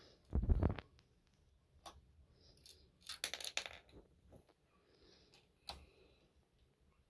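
Plastic Lego pieces clicking and clattering as a Lego model is handled, with a dull thump about half a second in and a quick run of clicks in the middle.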